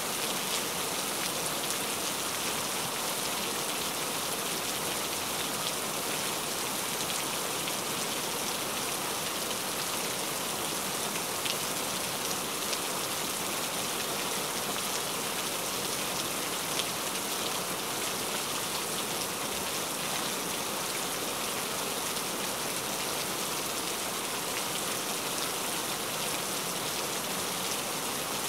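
Heavy rain falling steadily: an even hiss with scattered faint ticks of single drops.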